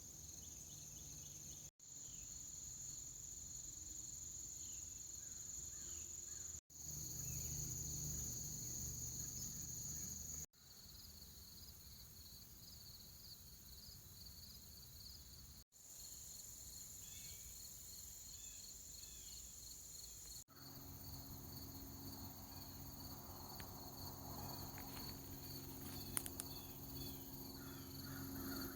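Outdoor insect chorus, crickets among them: a steady high-pitched trill over a faster pulsing chirp, broken off sharply several times by edits. About two-thirds of the way through a low steady hum joins it, with a couple of faint clicks near the end.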